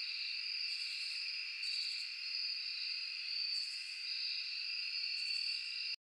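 Night insect chorus: crickets trilling steadily, joined every second or two by a higher, buzzy pulsed insect call. It cuts off suddenly at the end.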